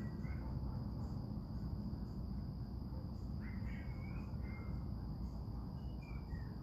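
Dusk ambience: crickets trilling steadily in one high, unbroken tone over a low steady rumble. A few faint chirping calls come through around the middle and again near the end.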